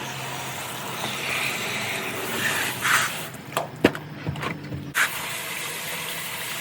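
Air hose blowing lint out of a GE dryer cabinet: a steady hiss over a low motor hum that stops about halfway through, followed by a few sharp knocks.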